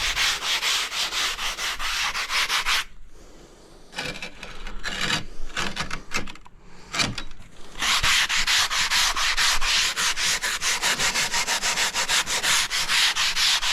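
Hand sanding block rubbed back and forth along the freshly cut edge of a large-format tile, smoothing the edge, in rapid strokes several a second. The strokes pause briefly about three seconds in, go unevenly for a few seconds, then run on steadily from about eight seconds in.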